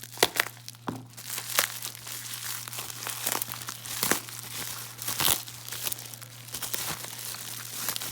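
Packing material being crinkled and pulled apart by hand, a continuous rustle with sharp crackles and some tearing, as a wrapped item is unpacked.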